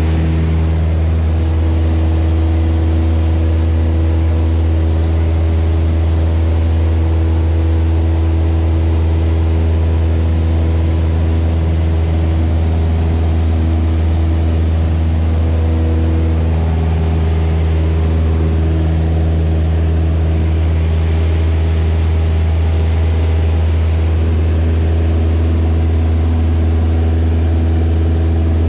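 Single-engine light plane's piston engine and propeller droning steadily, heard from inside the cabin. The tone of the drone shifts slightly about halfway through.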